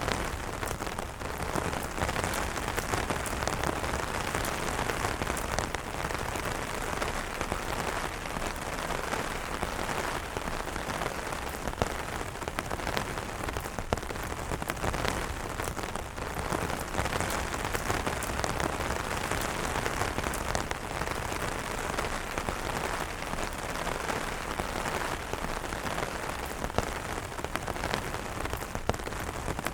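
Steady rain falling on umbrellas: a dense, even patter with many sharp individual drop hits.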